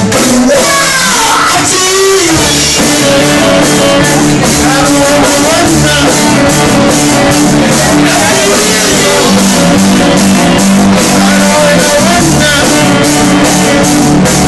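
A band playing rock music, with singing over guitar, bass and drums.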